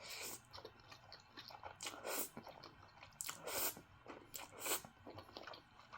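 Close-miked chewing of instant noodles coated in a sticky sauce: a run of short, irregular wet mouth sounds.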